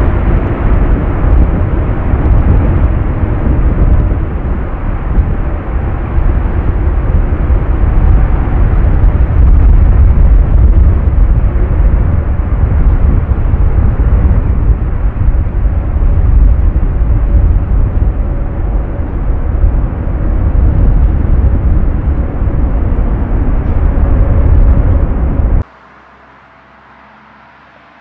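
Boeing 747-8F's four GEnx turbofan engines running loud as the jumbo jet moves along a wet runway, a dense noise with a heavy low rumble. It cuts off abruptly about 26 seconds in, leaving only a faint background.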